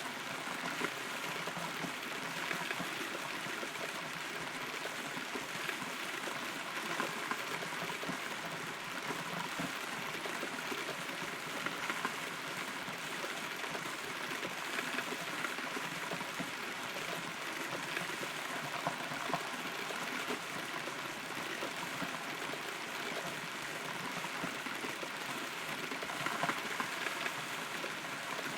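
Steady rain heard from inside a hollow rotten tree trunk, a constant patter with many individual drops tapping close by.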